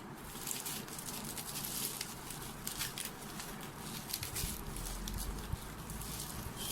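Irregular rustling and crinkling with scattered small clicks, typical of packaging being handled and opened.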